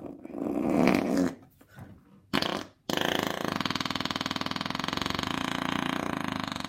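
Imitation fart noises made by a person: a loud buzzy fart lasting about a second, a short one about two and a half seconds in, then from about three seconds a long, steady fluttering buzz.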